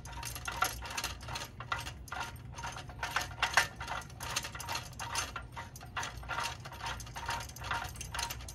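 Rapid, irregular metallic clicking and rattling from a Rabaconda tire changer stand as a tool shaft is turned by hand in its threaded post.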